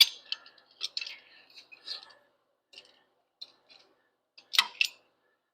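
Metal clinking and clicking as steel stock and a small bender are handled, with a sharp knock at the start and two more near the end.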